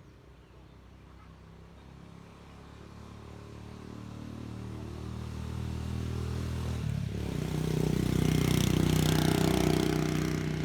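A motor vehicle's engine approaching, growing steadily louder, with its pitch shifting about seven seconds in; it is loudest around nine seconds in as it passes and then begins to fade.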